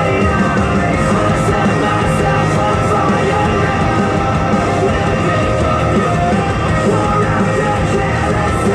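Loud rock music with sung and shouted vocals, playing steadily throughout.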